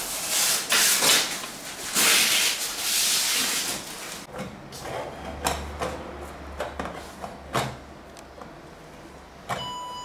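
Metal exhaust parts scraping and sliding against each other in loud bursts, then scattered clicks and knocks as a motorcycle silencer is handled and fitted. A set of steady high tones comes in near the end.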